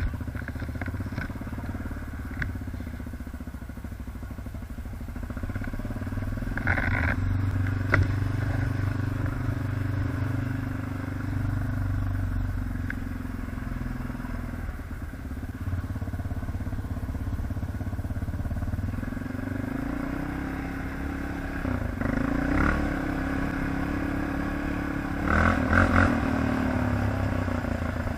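ATV (quad bike) engine running steadily, its pitch rising and falling in a few short revs near the end, with a few brief clattering bursts along the way.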